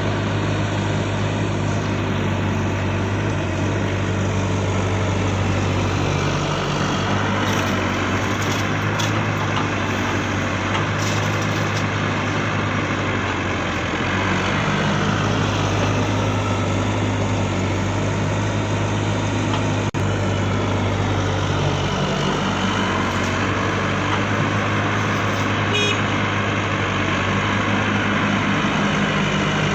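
Small electric motors and gearboxes of RC excavators and trucks running steadily. Their whine shifts in pitch every few seconds as the controls change.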